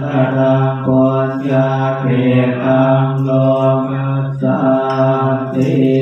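Buddhist monks chanting in Pali through a microphone, in a steady low monotone on nearly one pitch, with brief breaks every second or two.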